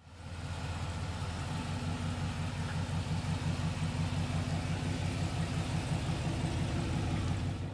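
A 1972 Chevrolet El Camino's engine idling steadily with an even, pulsing low exhaust note. It fades in at the start and cuts off at the end.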